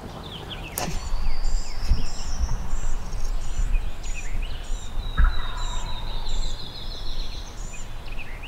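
A wild turkey gobbler gobbling in the distance about five seconds in, answering the hunters' calls. Songbirds chirp and trill high and repeatedly over a low rumble.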